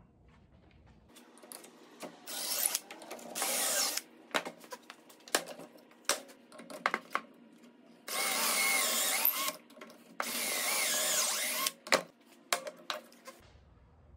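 DeWalt cordless drill boring pocket holes into a wooden board through a pocket-hole jig. It runs in four spurts, two short ones and then two of about a second and a half, the motor's pitch wavering as the bit cuts. Knocks and clicks come between the spurts.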